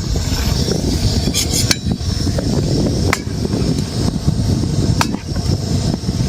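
A steady low rumble with a few sharp knocks or taps: a small cluster about a second and a half in, then single ones near three and five seconds.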